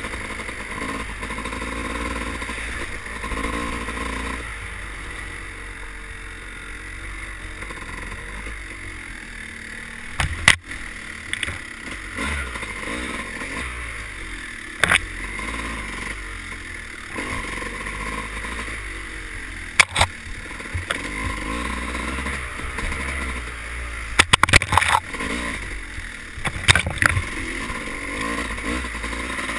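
Engine of an off-road trail bike running and revving up and down as it is ridden, heard from a helmet-mounted camera. Several sharp knocks break through, with a quick cluster of them near the end.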